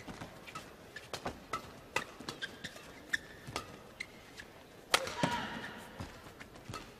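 A fast badminton rally: racquets striking the shuttlecock back and forth in sharp cracks, with court shoes squeaking on the floor between shots. The hardest hit comes about five seconds in.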